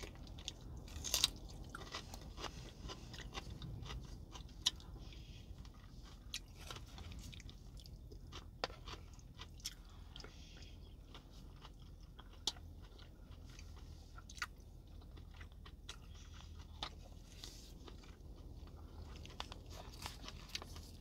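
Close-up chewing and biting with scattered sharp crunches, from eating fresh cucumber slices and stewed cabbage.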